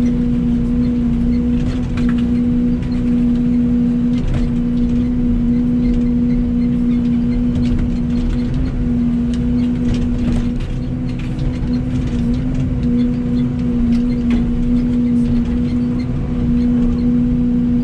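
Excavator's diesel engine running at a steady pitch with a constant drone, with scattered light knocks as the machine works.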